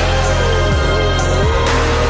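Electronic music with a deep, steady bass line, falling bass drops and a wavering synth melody.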